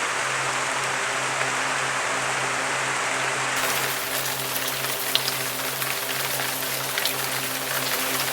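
Rain falling in a steady hiss. From about four seconds in come scattered sharp pops, with a low steady hum underneath.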